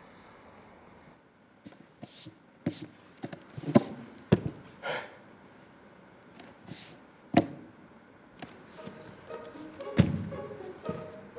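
A small white table with wobbly legs being rocked by hand, knocking against a hard floor in a string of irregular thunks and knocks. A heavier thump comes near the end, as soft bowed-string music begins.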